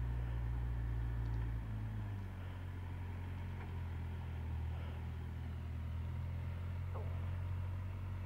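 A vehicle engine running steadily at low revs, its note shifting down a little about two seconds in.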